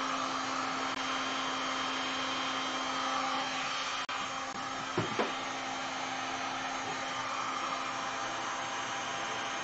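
Electric heat gun blowing steadily over wet epoxy resin: an even rush of air with a steady motor hum. Two brief knocks come about halfway through.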